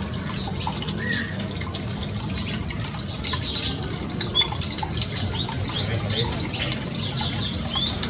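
Several small songbirds chirping: many short, high, falling notes, a few each second. Underneath is the steady trickle of water running down a shallow stream.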